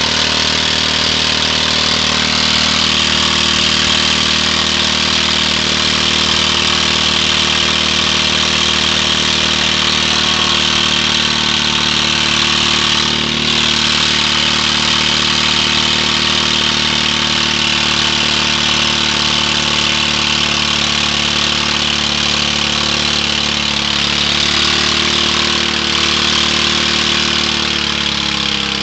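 Riding lawn tractor's engine running at a steady, unchanging speed while its rear tyre spins in place against a brick, with a steady hiss over the engine note.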